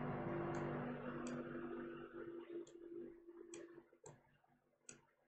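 Computer mouse clicking: about half a dozen sharp, separate clicks at irregular intervals. A low steady hum under them fades out over the first few seconds.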